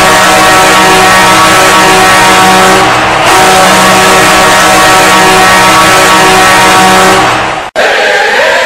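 Detroit Red Wings arena goal horn blowing in long, loud, low blasts, one ending about 3 seconds in and the next starting right after a short break. The horn cuts off suddenly near the end and goal music begins.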